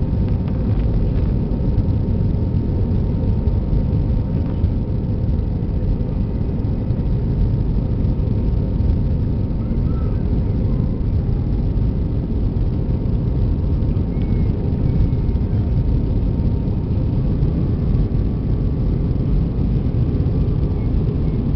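Jet airliner cabin noise during the climb after takeoff: a steady low rumble of the engines and rushing air, with a faint thin whine that drops away near the end.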